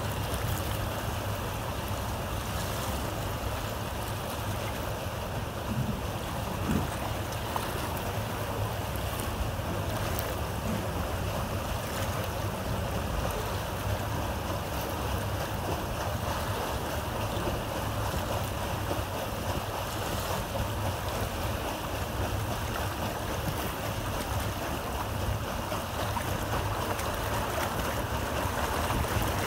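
Paddle steamer's wash churning and rushing past the hull in a steady flow, with a low rumble and wind buffeting the microphone.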